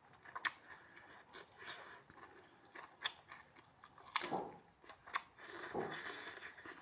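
A person chewing and biting pork meat, with short wet clicks and smacks of the mouth and a couple of louder chewing sounds partway through.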